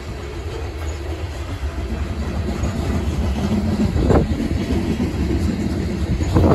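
Covered hopper cars of a freight grain train rolling past close by: a steady low rumble of steel wheels on rail, with a sharp wheel clack about four seconds in and another near the end.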